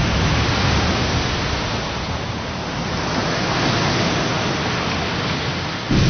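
Animated sound effect of a torrent of rushing water, a steady dense roar. Near the end it is cut by a sudden heavy low boom.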